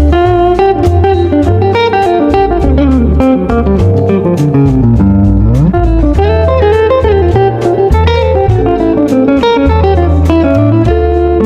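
Background music led by electric guitar over a bass line and a steady beat, with a pitch bend about five seconds in.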